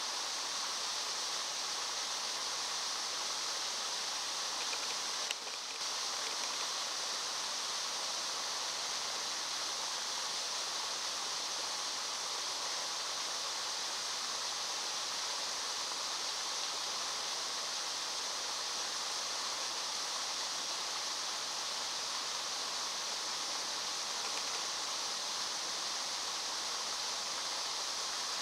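Steady rushing hiss of outdoor background noise, with a brief dip about five and a half seconds in.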